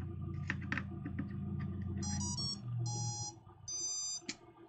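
A combat robot's motor speed controllers (ESCs) play their power-on tones: a quick run of short musical beeps, then two longer beeps, showing the robot has powered up and the controllers are armed. Before them come a few light clicks as the power switch is turned in.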